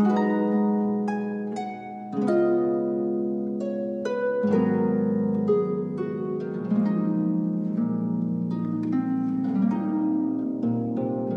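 Slow instrumental music of plucked-string notes ringing over held tones.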